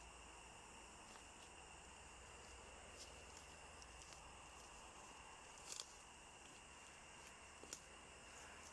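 Near silence: faint outdoor background with a steady high tone and a few soft clicks, two slightly louder ones near the end.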